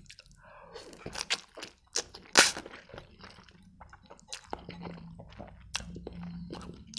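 Close-miked eating of spicy instant noodles with chopsticks: noodles slurped into the mouth, then chewed with many small wet mouth clicks. The loudest sound is a short slurp about two and a half seconds in.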